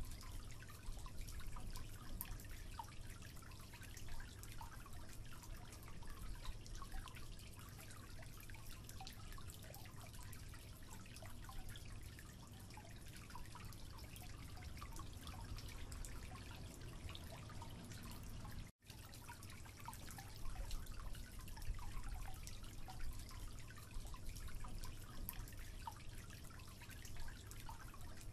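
Water dripping from a faulty tap into a sink: many small, irregular drips over a steady low hum. The sound cuts out for an instant about two-thirds of the way through.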